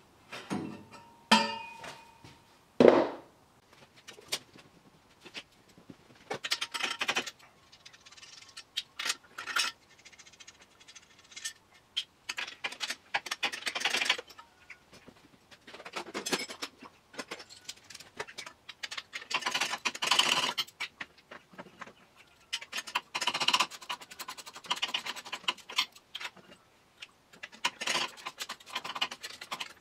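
3-inch 304 stainless steel exhaust tubing with a catalytic converter being handled and fitted into an engine bay: irregular scraping, clinking and rattling of metal tube against metal. Two sharp knocks come in the first three seconds, the first ringing briefly.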